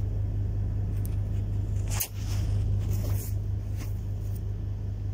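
A steady low hum, with a few soft clicks and rustles, the loudest about two seconds in.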